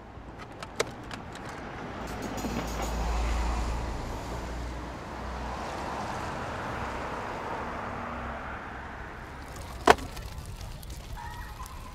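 Street traffic: a vehicle passes, its low rumble swelling a couple of seconds in and then easing off. There is a sharp single knock near the end.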